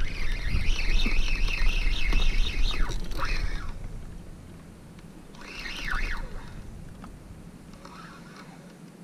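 Fishing reel drag screaming as a hooked fish takes line: one long run for about three and a half seconds, a shorter burst about five and a half seconds in, and a faint one near the end, with a low rumble of handling and water under the first run.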